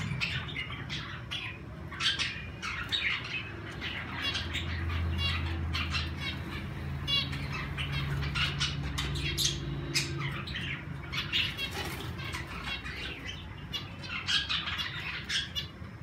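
A mixed aviary flock of zebra finches, cockatiels and budgerigars chirping and calling in many short, rapid notes and trills, with wing flaps as a finch flies past. A low steady hum runs underneath.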